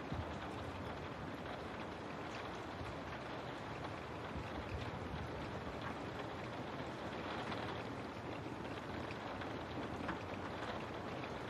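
Steady rain falling, an even hiss with scattered faint drop ticks over a low rumble.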